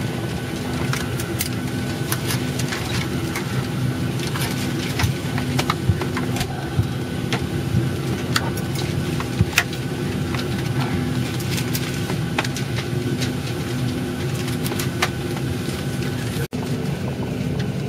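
Steady hum of an airliner cabin on the ground, with short clicks and knocks scattered throughout as the overhead luggage bins are pushed shut and latched.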